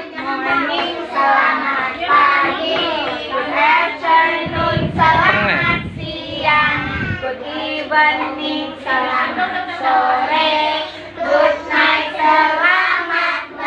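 Group of young children singing together, loud and continuous. A low rumble sits under the singing for a couple of seconds about halfway through.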